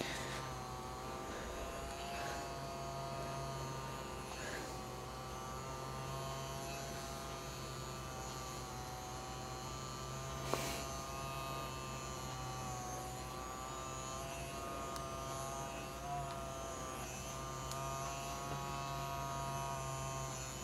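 Small handheld red-light massage device humming steadily, its several tones wavering slightly in pitch. A single sharp click about halfway through.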